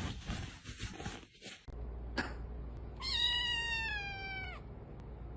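A cat meows once, a single drawn-out call lasting about a second and a half that falls slightly in pitch, over a low steady hum. Scattered clicks and rustles come before it.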